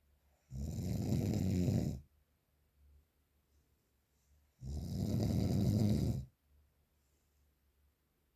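A sleeper snoring heavily: two long snores of about a second and a half each, some four seconds apart, with quiet breathing between.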